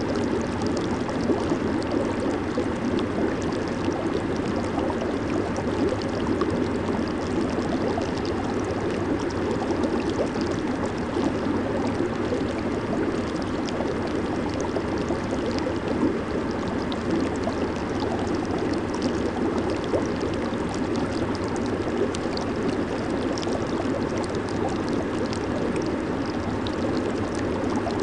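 Jacuzzi water churning and bubbling steadily, with a constant low rush of water and a dense fizz of small bubbles breaking at the surface.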